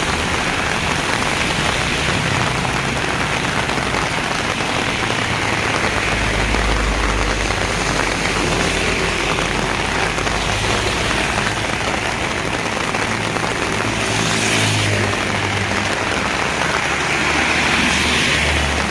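Heavy rain pouring steadily, with a low hum underneath at times.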